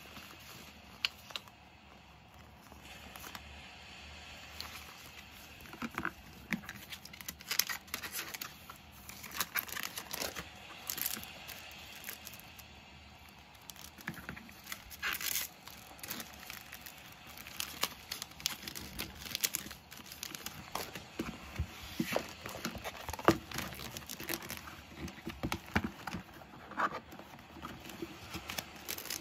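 Close-up rustling and crinkling of paper sticker sheets and plastic-wrapped sticker packs being handled, with many irregular small taps and crackles. Near the end, the clear plastic pocket pages of a ring binder are turned.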